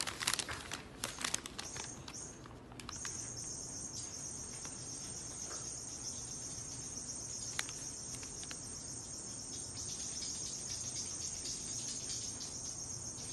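Paper bag crinkling for the first few seconds as it is settled over a cat's head, then a steady high-pitched shrill hum.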